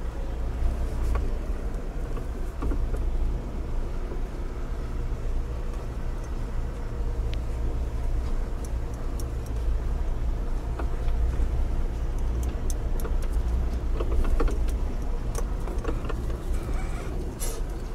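Ashok Leyland Dost light truck's engine running steadily, with no revving. A few faint clicks or knocks come near the end.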